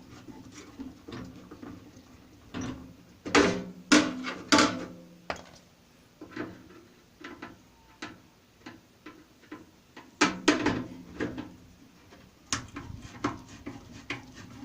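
Knocks and clanks of metal parts as a small microwave oven is taken apart by hand. The loudest hits come about 3 to 5 seconds in and again about 10 seconds in, each with a short ringing after it.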